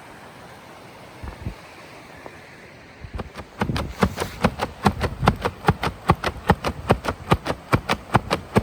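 Firewood being cut: fast, even strikes on wood, about five a second, starting about three seconds in.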